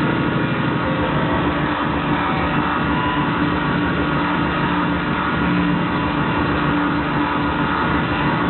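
Loud live industrial noise music over a concert PA: a dense wall of distorted noise with steady droning tones, with no break. The recording is dull, with no high end.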